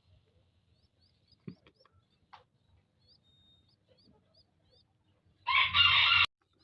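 A rooster crowing loudly about five and a half seconds in, cut off abruptly after under a second. Before it, faint high chirps from small birds and a few soft knocks.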